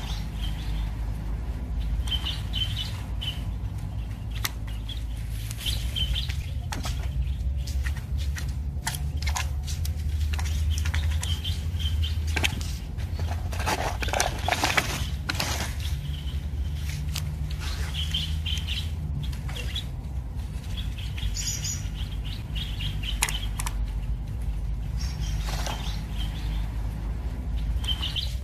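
Birds chirping in short repeated phrases every few seconds over a steady low rumble, with scattered sharp clicks of plastic drone propellers and guards being handled and snapped on, busiest around the middle.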